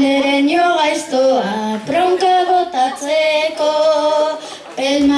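A child singing a bertso, a rhymed Basque verse, unaccompanied into a stage microphone: one voice on a simple tune with long held notes, breaking briefly between lines.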